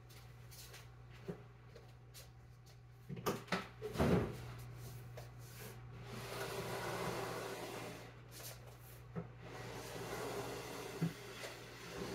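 A tall white shelving unit being handled and pushed: a few knocks and a heavy thump about four seconds in, then twice a stretch of scraping as it slides across the hard floor on furniture sliders.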